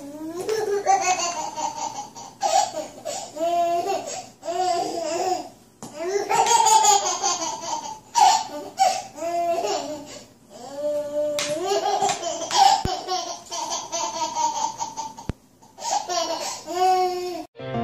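A baby laughing and squealing in many short, high-pitched bursts, the pitch climbing and falling.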